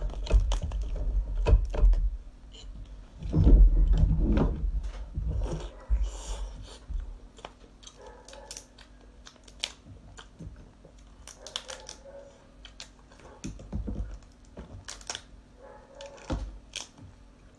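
A cooked rock lobster's shell being cracked and peeled apart by hand: a run of sharp crackling clicks and snaps, with dull low thumps in the first few seconds.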